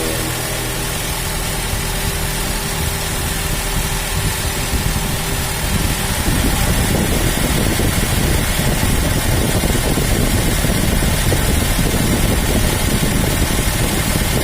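Toyota Innova engine running at idle, a steady hum; about six seconds in the sound changes abruptly and becomes louder and rougher.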